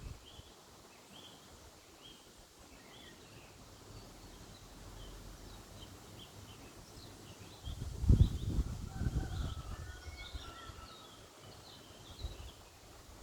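Small birds chirping and twittering in short repeated notes, with a loud low rumble about eight seconds in.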